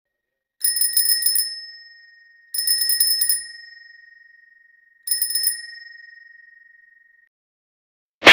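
Bicycle bell rung three times, each a quick trill of strikes whose ring fades away over a second or two. Near the end comes a single short, loud snap, the loudest sound, as a clapperboard animation appears.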